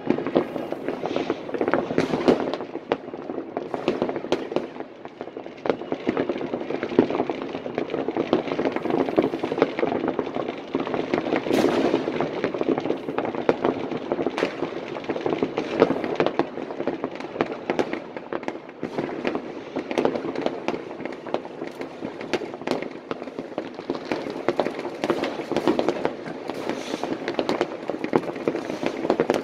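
Many consumer fireworks going off at once across a town: overlapping bangs and crackles from aerial rockets and firecrackers in a steady, unbroken barrage.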